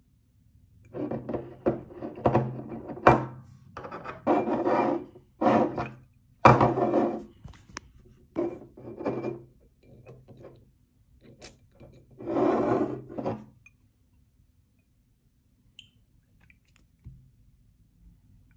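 Glass perfume bottle scraping and rubbing against its cardboard box and insert as it is handled and pushed into the box: a string of short rasping rubs with a few knocks, the loudest about six seconds in, then only faint handling from about thirteen seconds on.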